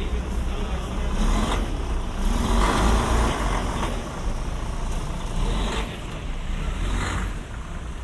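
Diesel engine of a Van Hool coach bus running close by, a deep steady rumble with street traffic noise swelling over it a few seconds in.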